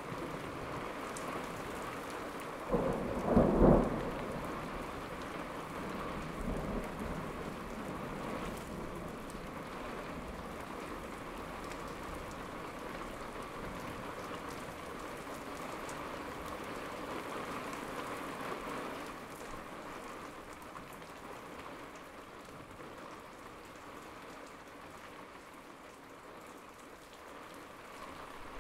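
Steady rain with a loud clap of thunder about three seconds in, lasting a little over a second, then a fainter rumble a few seconds later. The rain eases slightly toward the end.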